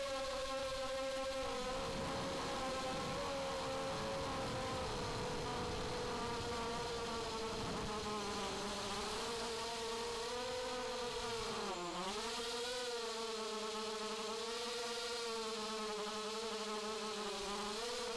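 Brushless motors and propellers of a ZMR250 racing quadcopter (2204 2300kv motors), heard up close from its onboard camera: a steady buzzing whine whose pitch wavers with the throttle. About twelve seconds in the pitch dips briefly, then comes back up.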